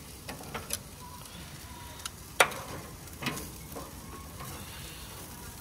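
Tomahawk steak sizzling steadily as it cooks, with scattered sharp pops and clicks. The loudest click comes about two and a half seconds in.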